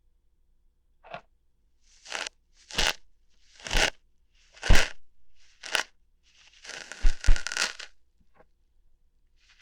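Ear hairs being plucked, close to the microphone: a string of short, crackly tearing snaps at irregular intervals, about eight in all, with a longer crackling stretch about seven seconds in.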